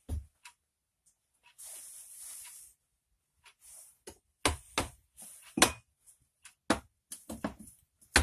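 Steel wood-splitting wedges being handled and set down on a wooden workbench. There is a short scraping rustle, then from about halfway through a string of sharp knocks, several in a row, as the wedges hit the bench.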